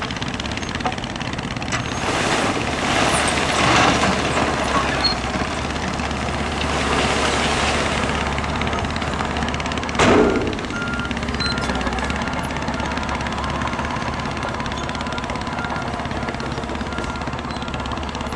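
Heavy earthmoving machinery running, with a diesel engine under load that swells louder twice. A single loud bang comes about ten seconds in, and after it a reversing alarm beeps repeatedly.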